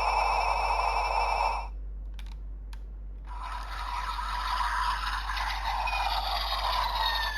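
Electronic sound effects from a Bandai DX Guts Sparklence transformation toy: a steady buzzing electronic tone that cuts off after about a second and a half, then two sharp clicks. From about three seconds in comes a new electronic effect with falling whistle-like tones near the end.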